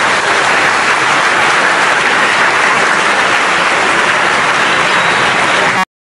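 Audience applauding steadily; the sound cuts off suddenly near the end.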